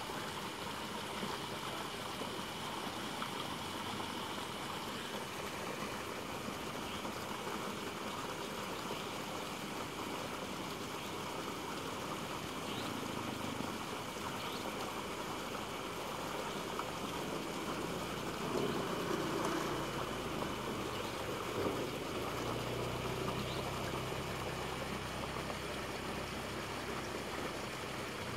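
Steady rush of flowing water. A low, steady hum comes in about two-thirds of the way through.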